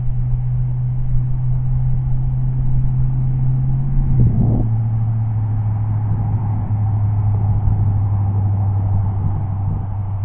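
Golf cart running while it drives, a steady low hum that drops slightly in pitch about four seconds in, with a brief knock at the change.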